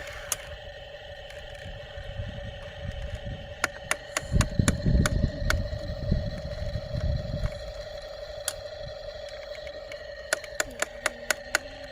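An engine running steadily with a hum. It swells into a loud low rumble for a few seconds in the middle, and a quick run of clicks comes near the end.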